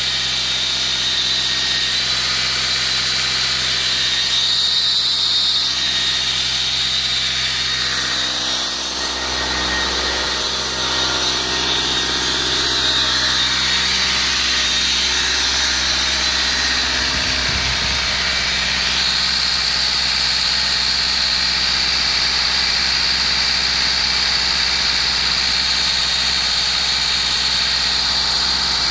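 Hatz 4L30S four-cylinder air-cooled industrial diesel engine running steadily at a constant speed.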